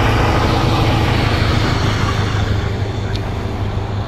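SM42 diesel shunting locomotive running light past at speed, its diesel engine giving a steady low drone that grows quieter as it moves away.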